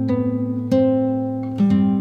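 Background music: a plucked acoustic guitar playing sustained chords, a new chord struck about every second.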